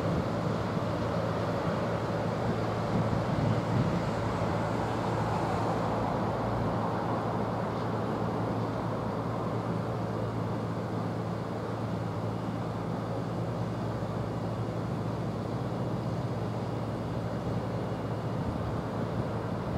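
Freight train of tank wagons rolling away along the track: a steady rumble of wheels on rail with a low hum, slowly fading.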